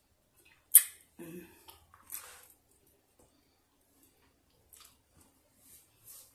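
A single sharp plastic click, then soft handling rustles of a toilet-shaped plastic candy container and lollipop. A short low hum from the eater comes just after the click.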